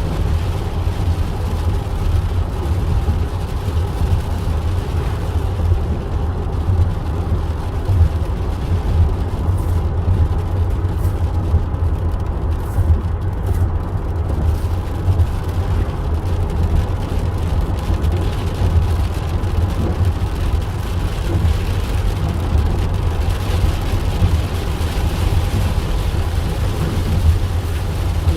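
Car driving at steady speed, a continuous low road and engine rumble, with a faint higher hiss growing in the last few seconds.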